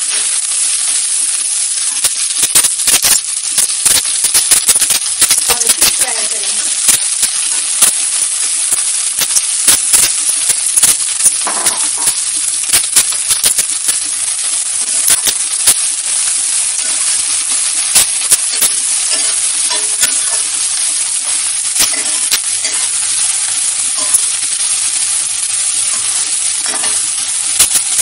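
Sliced onions sizzling in hot oil with mustard seeds in a stainless-steel kadhai, stirred with a metal spatula. Frequent sharp clicks sound over the steady hiss.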